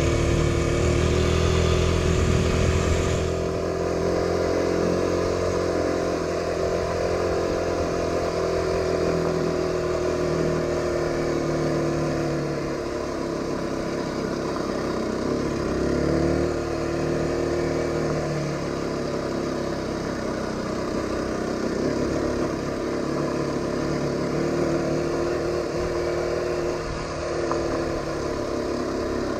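Aprilia RX125 motorcycle engine running under way, its note rising and falling as the throttle and road speed change. It is loudest for the first few seconds.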